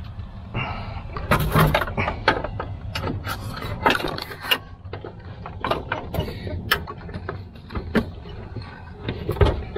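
Metal battery hold-down rod clinking and scraping against the golf cart's steel battery frame as it is worked into its hole: a string of irregular clicks and knocks, with a heavier knock near the end.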